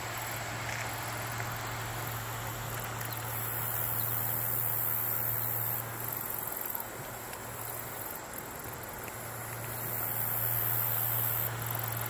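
A high-pitched chorus of insects, swelling louder twice, over a steady hiss of flowing river water and a low steady hum.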